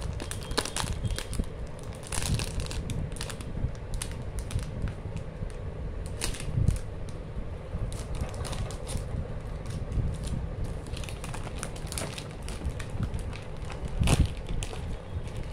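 Clear plastic shrink-wrap being crinkled, cut and pulled off a cardboard chocolate gift box, giving irregular crackles and taps as the box is handled, over a steady low rumble.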